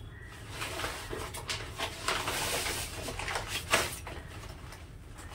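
Brown paper grocery bags rustling and crinkling as they are handled and opened, with a few sharp crinkles and a denser stretch of rustling about two to three seconds in.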